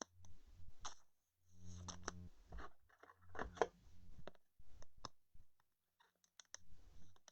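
Trading cards and their plastic packaging being handled, in irregular bursts of rustling, scraping and crinkling, with a brief low hum about a second and a half in.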